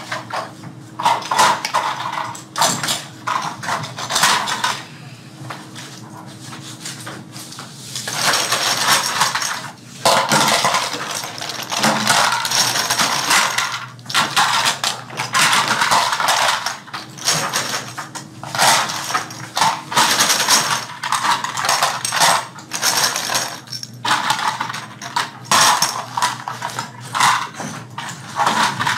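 Irregular clatter and clicking of small toy-airplane parts being handled, fitted together and set down on worktables, with stretches of rummaging through loose pieces.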